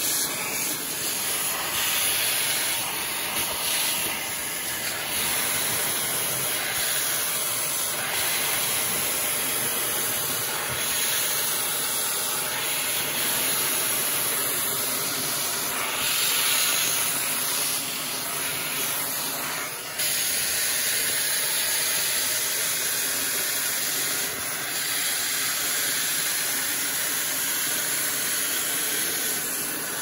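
Shark vacuum cleaner running, a steady rushing hiss of air sucked through its crevice tool as it is worked along a window sill and track, picking up dust and lint. The suction noise dips briefly and comes back about two-thirds of the way in.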